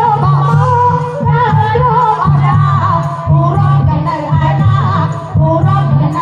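Song playing loud: a wavering singing voice over a steady, heavy bass beat, the music for a circle dance.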